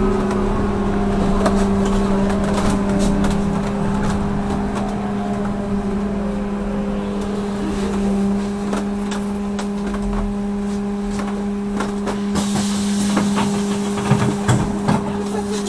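Trolleybus ride heard from inside the cabin: a steady electric hum with the drive's whine sliding down in pitch as it slows, over rattles and knocks from the body, and a hiss for a few seconds near the end.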